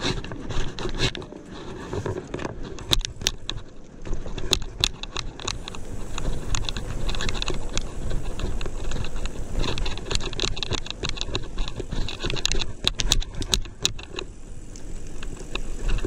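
Bicycle rolling over a rough concrete path: steady tyre and riding noise with scattered clicks and rattles from the bike, thickest twice in the middle, over a low rumble.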